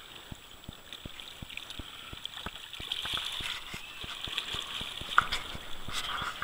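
Flowing river water rushing and gurgling, with frequent small low ticks and one sharper knock about five seconds in.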